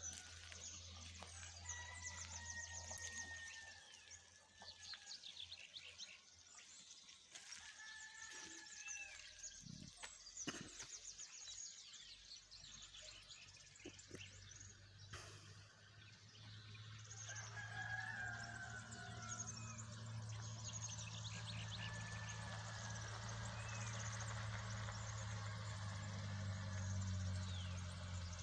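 Rooster crowing several times, each crow a second or two long, with small birds chirping throughout. A low steady hum grows louder in the second half.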